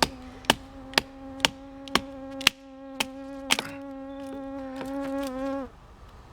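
Wooden baton knocking on the spine of a knife, about two blows a second, splitting wet wood into kindling; the knocking stops a little past halfway. Throughout, a flying insect buzzes close to the microphone with a steady pitch, dipping slightly just before it cuts off near the end.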